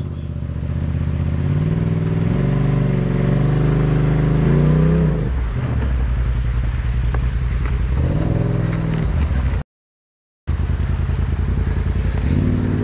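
Polaris RZR side-by-side engine idling and revving in two pushes, its pitch rising and falling, the first a couple of seconds in and the second about eight seconds in. The sound cuts out completely for under a second near the end.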